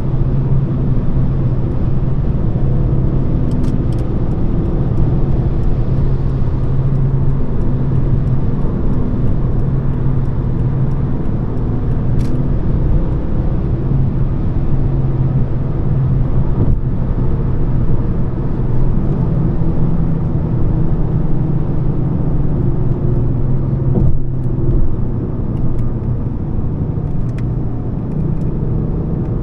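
Volvo S40's 2.4-litre five-cylinder petrol engine running steadily at cruising speed under a continuous rush of road and tyre noise. The engine's hum shifts slightly in pitch about two-thirds of the way through.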